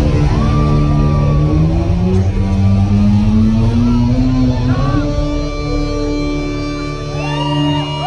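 Rock band playing live, a loud electric guitar holding a sustained note that slowly bends upward in pitch over heavy low-end sound. Near the end the band thins out and shouts from the crowd come in.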